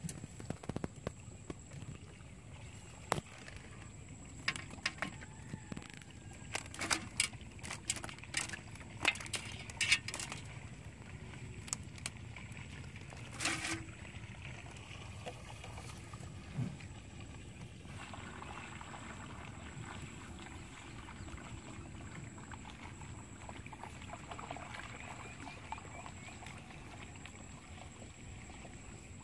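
Bamboo fish trap being handled: a run of sharp clicks and knocks from its slats in the first half, the loudest about ten seconds in, then only a quiet, even background.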